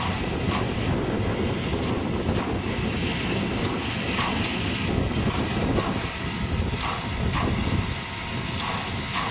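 Steam locomotive No. 734, a 2-8-0, passing close by under power, its exhaust and escaping steam making a loud, continuous rushing hiss.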